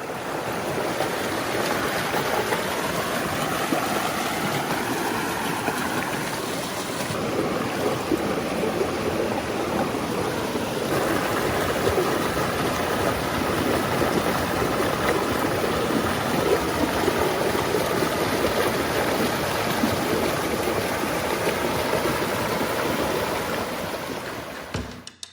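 Mountain river rushing over rocks, a steady loud flow of water.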